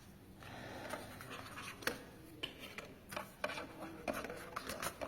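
Paper and card album contents being handled and pulled out: soft rustling for the first couple of seconds, then a scatter of short sharp taps and clicks as the pieces are moved.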